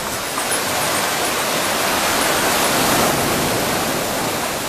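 Sea surf washing in among boulders and breaking on the sand, a steady rush of water that swells to a peak about three seconds in and then eases off.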